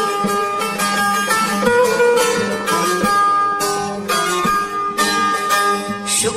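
Instrumental passage of Turkish folk music led by a plucked string instrument playing a fast melody, without singing.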